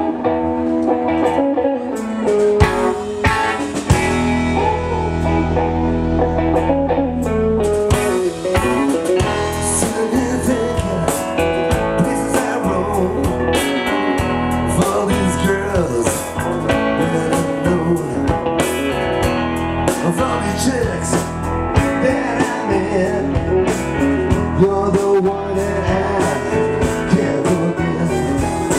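Live rock band with two electric guitars, drums and keyboard playing a bluesy number. It opens with a sparse electric guitar riff, and the drums and full band come in about eight seconds in.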